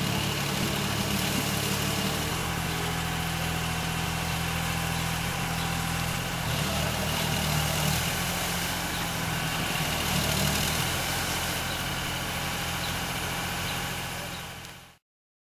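Aquatic weed harvester's engine running steadily, with water churning and hissing at the stern, a little louder through the middle. The sound fades out near the end.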